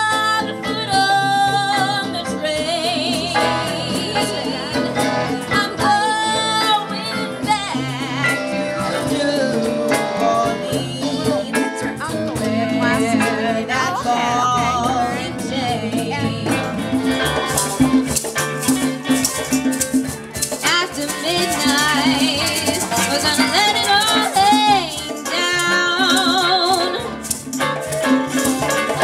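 Live band playing a song: a voice singing with vibrato over strummed acoustic guitars, hand drums and a shaker.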